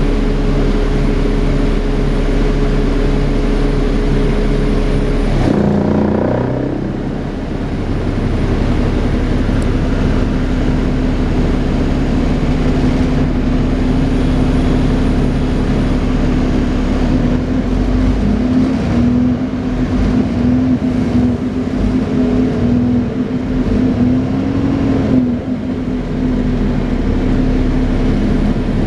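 Dennis Trident 2 double-decker bus running, heard on board, with its steady vacuum-cleaner-like "hoover" drone. The sound shifts about six seconds in, then settles into a drone whose pitch wavers up and down in the second half.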